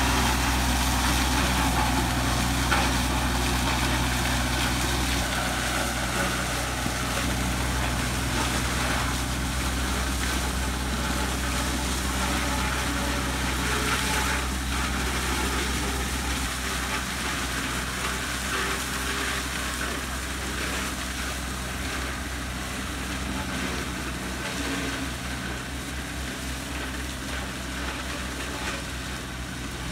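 Tractor engine running steadily under load while a front-mounted sugarcane cutter-windrower cuts down tall cane, with crackling and snapping of stalks over the engine sound. It slowly grows fainter as the machine works its way along the row.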